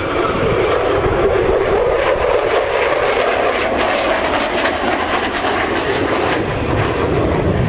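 F-16 fighter jet's engine noise as it flies past during a four-point roll: a loud, steady jet rumble whose pitch drifts slowly up and back down.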